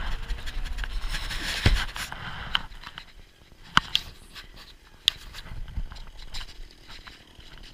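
Nylon fabric of a pop-up ice-fishing shelter rustling while it is handled, with wind buffeting the microphone, heaviest in the first two seconds. Several sharp clicks or snaps cut through, the loudest about two and four seconds in.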